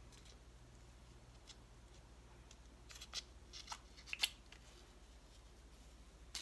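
Quiet room with a low steady hum, and a cluster of faint light clicks and taps about three to four seconds in as a slip brush is worked against its small slip cup.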